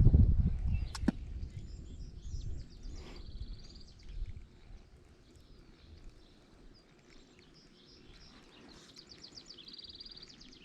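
Low rumbling noise that fades over the first few seconds, with a sharp click about a second in. A songbird sings a short, fast, high trill twice, about three seconds in and again near the end.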